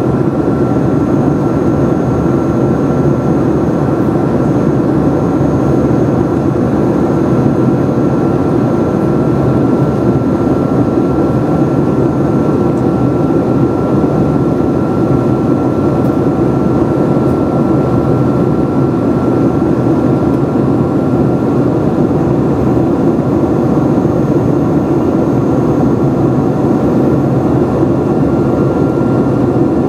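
Cabin noise of a Boeing 767-300ER in cruise, heard inside the cabin beside the wing engine: a loud, steady rush of engine and airflow noise, strongest low down, with a thin, steady whine above it.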